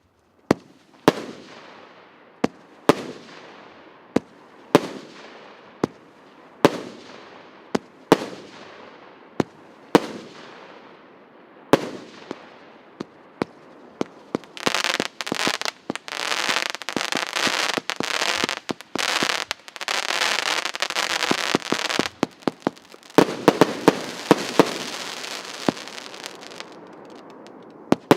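A 120-shot firework battery (cake) firing. First single bangs about once a second, each followed by a fading hiss, then about halfway a dense stretch of crackling, and a quick run of loud bangs a little past three quarters of the way through, with the crackle dying down after it.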